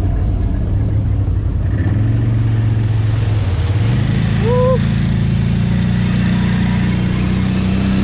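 Quad (ATV) engine running under way, its pitch climbing about four seconds in and then holding higher as it revs up. A brief squeak-like note sounds just after the rise.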